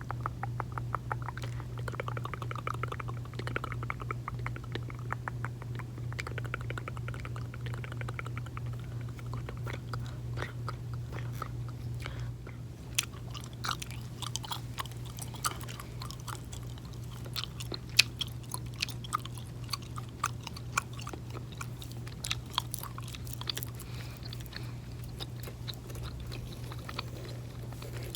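Close-miked mouth sounds of gum chewing: wet clicks and smacks over a steady low hum. The clicking is dense and rapid for about the first twelve seconds, then turns sparser with sharper individual smacks.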